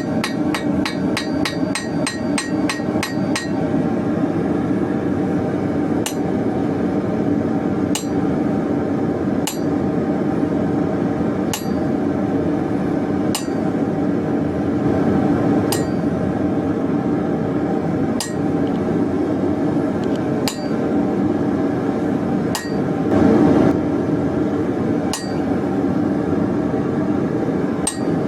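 Blacksmith's hammer striking hot steel bar on the anvil: a quick run of ringing blows, about four a second, for the first three seconds or so, then single blows about every two seconds. A steady low roar runs underneath.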